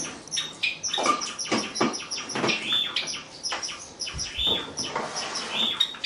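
Male Java sparrow singing: a quick, irregular run of short clicks and high chirps, with a few longer ringing notes mixed in.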